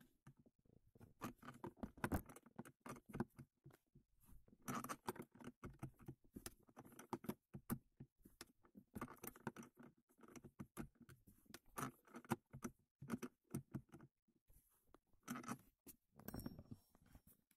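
Irregular small metallic clicks and scrapes of a 10 mm spanner working the adjusting nut on a Nissan Qashqai J10's handbrake cable rod, tightening the handbrake cables.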